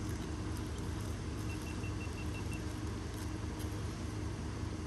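Wood bonfire burning, with a few faint scattered crackles over a steady low rumble.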